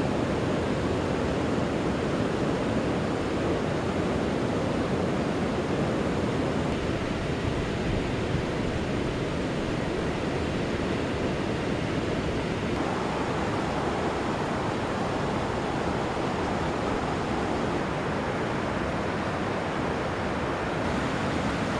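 Steady rushing wind, buffeting the microphone and moving through the surrounding brush.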